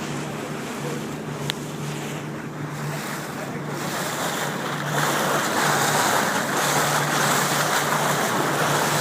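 Speedboat under way: a steady engine drone under the rush of water and wind buffeting the microphone. The rushing grows louder about halfway through.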